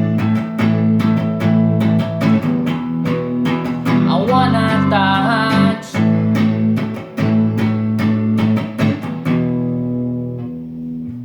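Guitar-backed music playing a closing passage with regular plucked strokes, ending on a sustained chord that rings out and fades away over the last couple of seconds.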